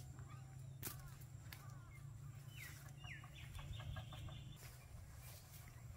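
Birds calling faintly: two short falling calls about two and a half seconds in, then a quick chattering run, over a low steady hum.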